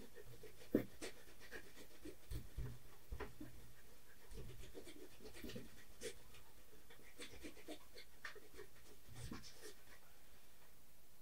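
Faint, irregular scratching and dabbing of a paintbrush laying white oil paint onto a canvas, the strokes thinning out near the end.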